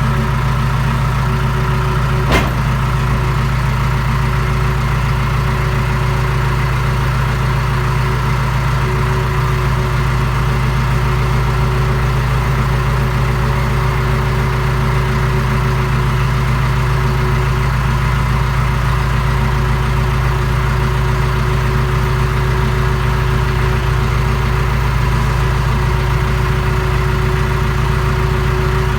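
Tractor engine running steadily under load while it tows a dead box truck. There is a single sharp click or knock about two seconds in.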